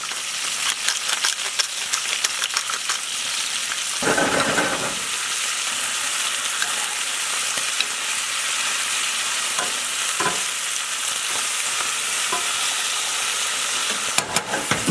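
Spinach, cherry tomatoes and garlic sizzling in olive oil in a frying pan, with the clicks and scrapes of a utensil stirring them. A louder noisy stretch about four seconds in lasts about a second.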